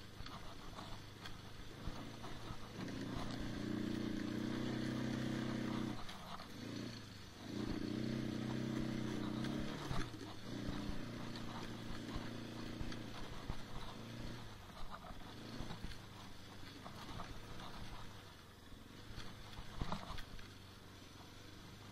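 ATV engine running as it is ridden, swelling louder twice in the first half as the thumb throttle is pressed and eased, then running quieter.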